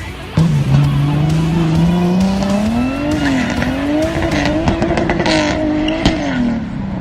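Turbocharged 2JZ straight-six in a drift-built Nissan 240SX, coming in loud about half a second in and revving, its pitch climbing and then swinging up and down under throttle, with tyres squealing.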